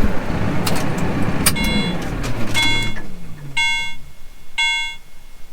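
Tractor diesel engine shutting off, its pitch falling away over the first few seconds. Then a warning beeper sounds about once a second, four beeps, with a sharp click in between.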